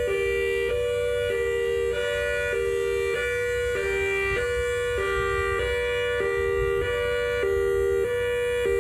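Whelen WS-3000 electronic outdoor warning siren sounding a hi-lo tone, alternating between a higher and a lower pitch about every half second in a steady, even rhythm.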